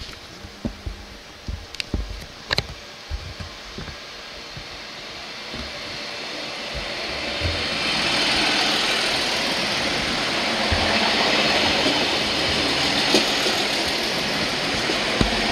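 Regional multiple-unit train drawing into the station and running along the platform close by: a rush of wheel and running noise that builds from about six seconds in and then holds steady. A few low thumps and clicks come before it.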